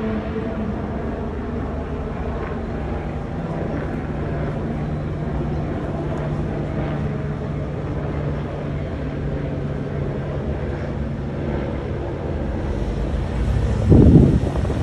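A steady, low engine hum over outdoor background noise, with a brief loud gust of wind on the microphone near the end.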